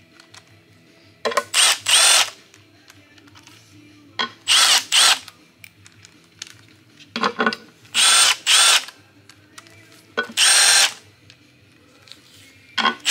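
Cordless power driver, set low, running timing-cover bolts into an LS engine block. It comes in about six short bursts a couple of seconds apart, each a motor whine that rises in pitch as it spins up and then stops.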